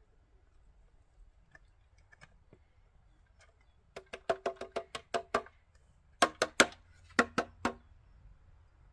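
A metal cheese grater knocked against the rim of a glass baking dish to shake off grated cheese. It comes as two quick runs of sharp taps with a brief ringing tone, about a second and a half each, and the second run is louder.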